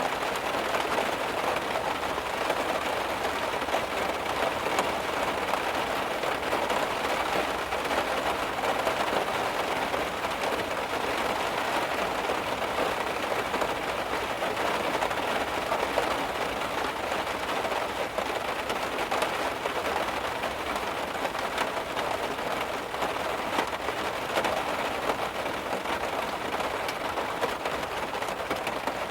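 Heavy rain drumming steadily on a car, a dense patter of drops on the metal and glass.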